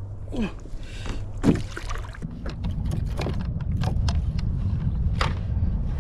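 Water splashing and knocking against a fishing kayak's hull as a large fish is handled alongside, with several sharp knocks and a steady low rumble underneath.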